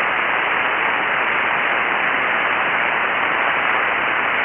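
Steady static hiss of HF band noise from a ham radio receiver on 7.188 MHz SSB, heard on an open frequency between transmissions.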